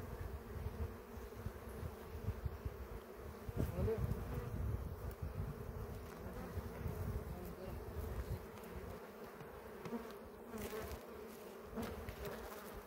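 Honeybees buzzing steadily around an opened hive, an even drone over an uneven low rumble. Near the end there are a couple of light knocks.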